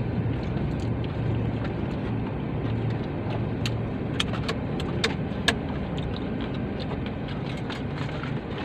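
Car engine idling, a steady low hum heard inside the cabin, with a handful of sharp clicks in the middle.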